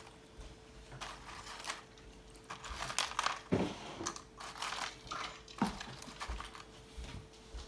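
Tortilla chips crunching and crinkling as they are handled and eaten, in irregular bursts that are busiest in the middle.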